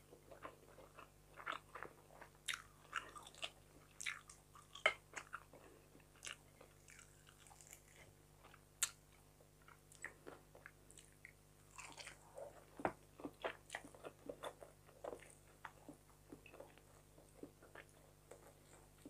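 A person chewing fried fish and rice with the mouth close to the microphone: a string of short, irregular wet clicks and smacks.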